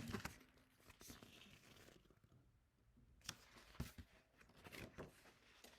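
Near silence: room tone with a few faint clicks and rustles.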